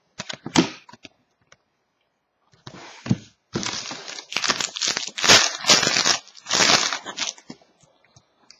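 A few light clicks of card handling, then a few seconds of loud crinkling and tearing of a plastic card-pack wrapper being ripped open.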